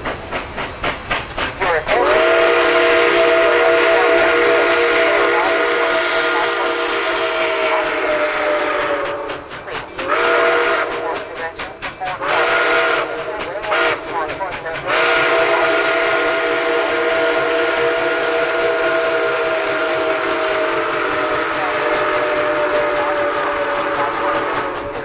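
Nickel Plate Road 765's steam whistle blowing a loud chord: one long blast, two short ones and a final long blast, its pitch sagging slightly at the end of the long blasts. Between blasts comes the fast regular beat of the steam locomotive and train running by.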